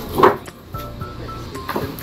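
Background music with a steady beat, over the knocks and clatter of sawn mango-wood planks being handled and stacked. The loudest knock comes just after the start.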